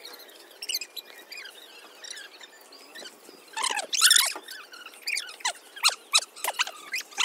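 Birds chirping: many short, high squeaky calls overlapping, with the busiest, loudest flurry about four seconds in.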